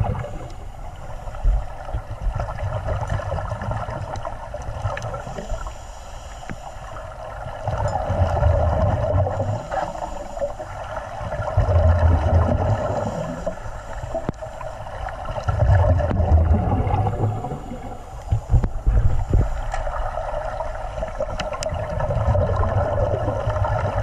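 Water noise recorded underwater: a steady hiss with low rumbling surges that swell and fade every three to four seconds.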